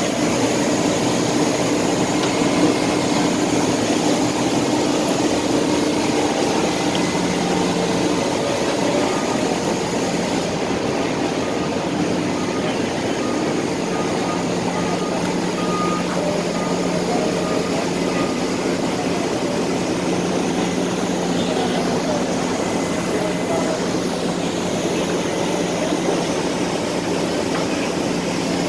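Forklifts running in a loading bay, over a steady mechanical hum, with a repeating reversing beeper in the second half.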